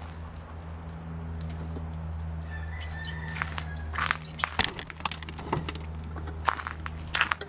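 A bird chirps briefly about three seconds in, over a steady low hum. From about four seconds in comes a run of clicks and knocks from a handheld camera being picked up and carried.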